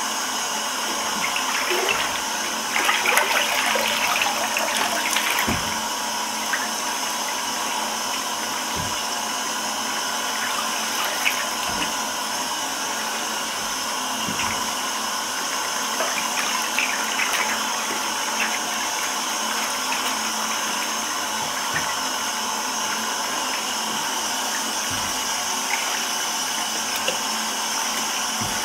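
Water running steadily into a filled bathtub, with sneakers sloshing and splashing in the water, loudest a few seconds in.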